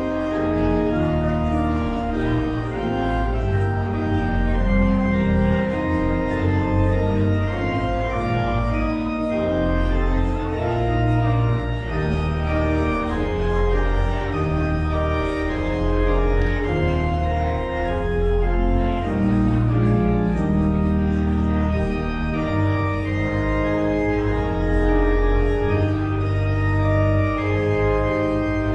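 Church organ playing a postlude in sustained chords over a deep bass line.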